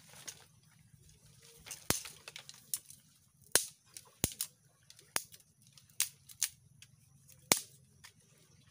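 Dry driftwood sticks being snapped by hand for firewood: about ten sharp cracks at uneven spacing.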